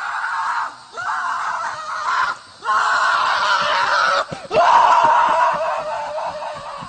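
A run of loud, drawn-out screams, five in all with short gaps between them. The last two are the longest and loudest, and the final one trails off near the end.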